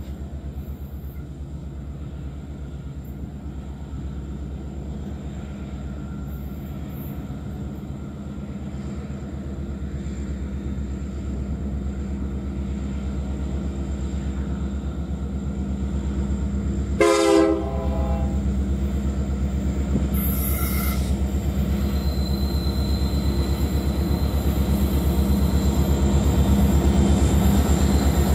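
Two EMD diesel locomotives hauling a departing iron ore train, an SD90MAC-H2 refitted with a 710 engine and an SD70ACe-P6, running under power as they approach, their low engine drone growing steadily louder. Just past halfway, the lead locomotive's horn gives one short blast.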